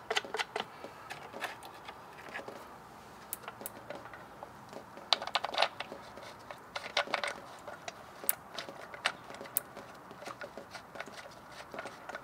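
Irregular small clicks and clinks of hands refitting the plastic face onto a Sta-Rite Dura-Jet spa pump housing and putting its bolts back in.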